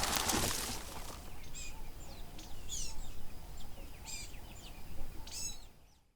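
Birds chirping: several short calls that sweep down in pitch, over outdoor background noise, with a rushing noise in the first second and a fade-out near the end.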